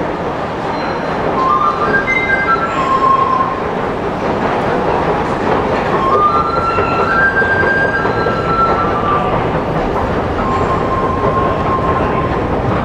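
Metro station escalator running: a steady mechanical rumble and clatter, with short high-pitched squeals coming and going.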